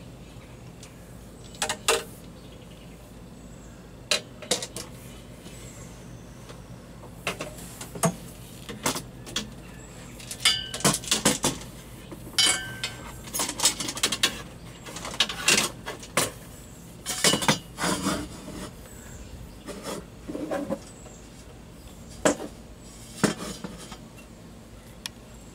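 Scattered metallic clinks and knocks, some ringing briefly, from handling copper tubing and tools, over a low steady hum.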